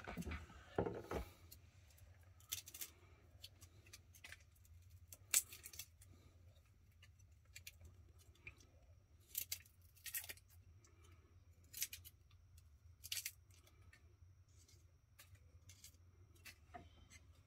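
Garlic cloves being broken apart and peeled by hand: short, scattered papery crackles and rustles of the dry skins, over a faint steady low hum.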